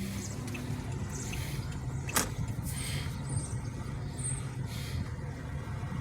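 Car engine running with road noise as the car creeps along slowly, a steady low hum, with one sharp click about two seconds in.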